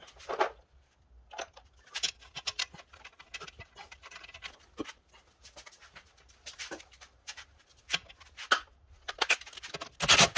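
Scattered light metallic clicks and knocks from hand-fitting the two strut bolts through the steering knuckle of a car's front suspension. A louder stretch of clatter starts near the end.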